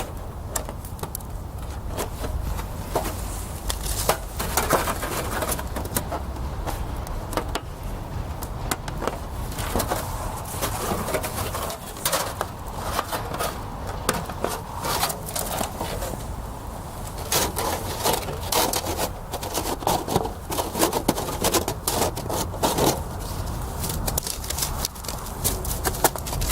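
Plates of a slot-together steel fire pit being fitted into each other, with irregular metallic clinks, knocks and scrapes.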